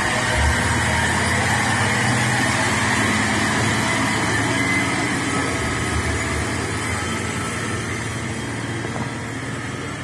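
Diesel engine of a Hino 500 Euro 4 box truck running under load as it passes close by, with tyre and road noise. The sound fades gradually over the last few seconds as the truck pulls away.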